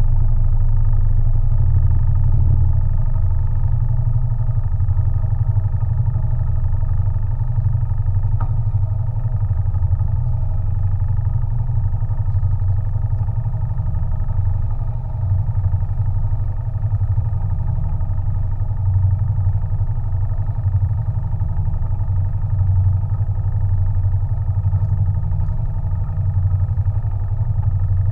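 A sailing yacht's inboard engine running steadily under way, a deep even drone.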